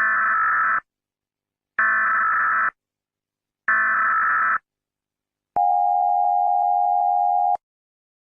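Emergency Alert System alarm: three short, identical electronic data bursts of the SAME header, about two seconds apart, followed by a steady attention tone lasting about two seconds that cuts off suddenly.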